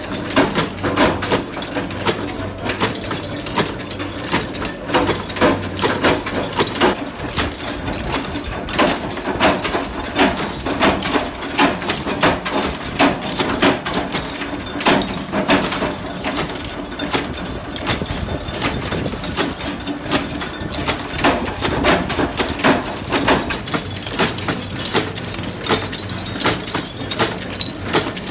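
Flywheel-driven metal-forming machine running with a dense, steady clatter of knocks over a low hum, mixed with small aluminium cups clinking against one another.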